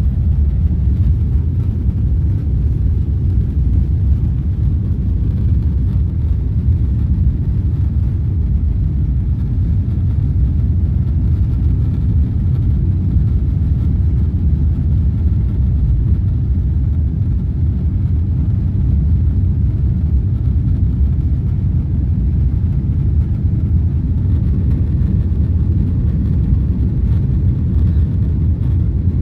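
Airliner jet engines and airflow heard from inside the passenger cabin during takeoff: a loud, steady low rumble.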